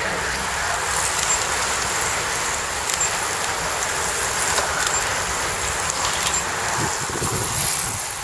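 A bunch of racing bicycles going past: a steady hiss of tyres on tarmac with whirring freewheels, easing off near the end.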